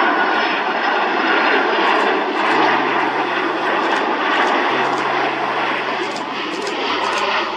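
Turbofan engines of a landing Boeing 767 freighter, a steady jet noise with a faint high whine that fades as the airliner flares and touches down.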